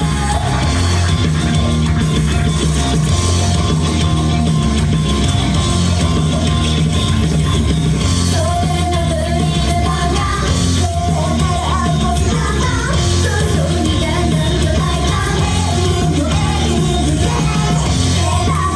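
Loud live pop-rock music with a steady beat and singing, the vocal melody standing out more clearly from about eight seconds in.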